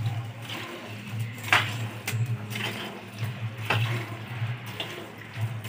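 Buffalo being milked by hand: streams of milk squirting from the teats into frothy milk in a plastic bucket, a short hiss with each pull, coming unevenly about twice a second. A low steady hum runs underneath.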